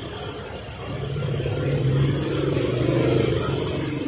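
A motor vehicle engine passing on the road, swelling to a peak about three seconds in and then easing off.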